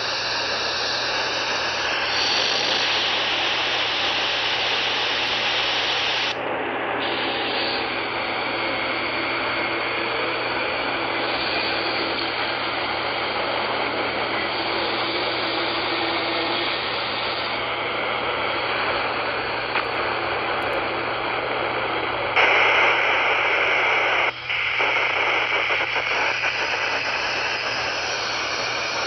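Steady radio static from a software-defined radio receiver tuned to CB channel 20 (27.205 MHz), with no voice. The hiss turns duller about six seconds in. It turns brighter and louder about 22 seconds in, with a brief dropout a couple of seconds later.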